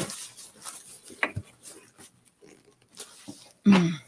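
A cardboard shipping box being opened and handled: scattered tearing and rustling of tape and cardboard, with a brief vocal sound about three and a half seconds in.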